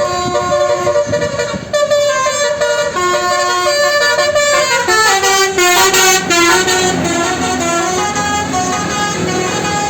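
A bus's Basuri multi-tone 'telolet' air horn playing a tune of stepped notes, several sounding together, with a falling run of notes about five seconds in.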